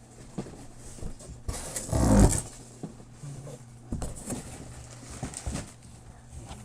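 Styrofoam packing peanuts and a cardboard box being handled and cleared out: scattered light knocks and rustling, with a louder rustle about two seconds in.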